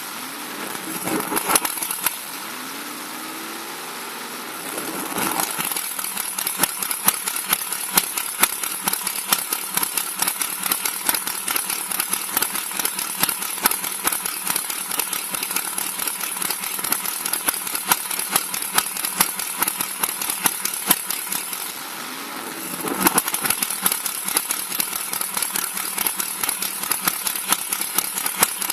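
Chevrolet DZ302 small-block V8 running through open headers, a rapid sharp crackle of exhaust pulses that overloads the microphone. It eases off for a few seconds about two seconds in and briefly again near the end, then comes back up.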